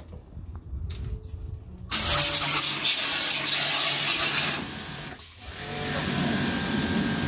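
Pressure washer spraying water over a car's engine bay: a loud steady hiss that starts about two seconds in, stops briefly a little past the middle, then starts again.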